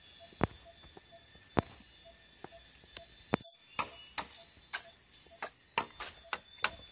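Machete chopping a bamboo pole: sharp woody chops come in a quick run of about two a second from around the middle, after a few scattered knocks. Under them runs a short beeping call about three times a second, like a forest insect or frog.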